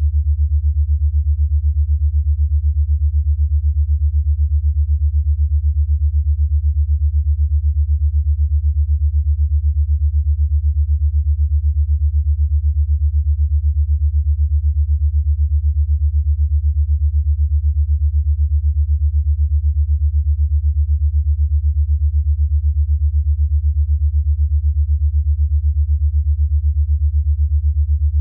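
A steady, low electronic sine tone that throbs rapidly and evenly in loudness: an 8 Hz alpha brainwave-entrainment tone.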